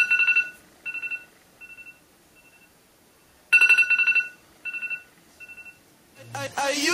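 Electronic ringtone-like tone: a half-second burst followed by three fainter, fading repeats like an echo, the whole pattern heard twice. The backing music is stopped during it and comes back in just before the end.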